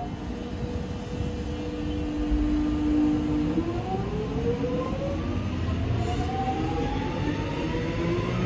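X'Trapolis electric suburban train pulling out: steady electric tones, then from about three and a half seconds in several whines rising in pitch as the traction motors accelerate it, over a low rumble of the wheels on the rails.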